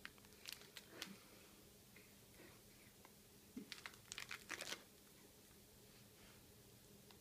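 Faint crinkling of a clear plastic bag of lotus chips being handled: a few crackles about half a second to a second in, then a denser burst of crinkling around four seconds in as the bag is moved about.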